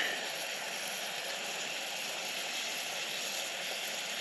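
Portable gas canister stove burning with a steady hiss under a pot, with a faint sizzle of butter and onions frying in it. A brief sharp sound at the very start.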